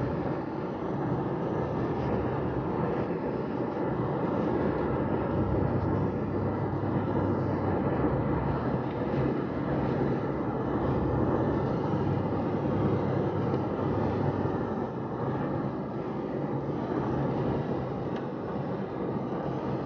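A car driving on a wet road, heard from inside the cabin: a steady low engine hum under the even rush of tyres on wet pavement.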